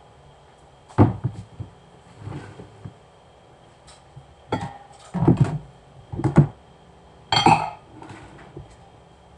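Kitchen clatter: pots, pans and utensils knocked and clinked, about half a dozen separate knocks a second or so apart.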